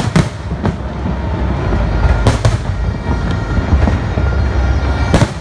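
Aerial fireworks bursting overhead: several sharp bangs, one after another near the start, a pair about two seconds in, and another near the end, over a continuous rumble of further bursts.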